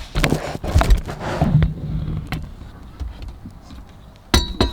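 Metal clinks and knocks from handling the roll bar's rear mounting bolts in the unthreaded rear-seat belt holes, ending in two sharp, ringing metal knocks.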